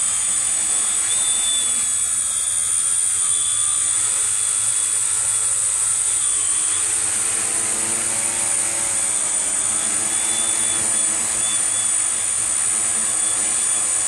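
Tarot Ironman 650 quadcopter's electric motors and propellers running in a hover, with a steady high-pitched whine. A little past the middle the pitch rises and falls as the motors speed up and slow down for a climb and descent.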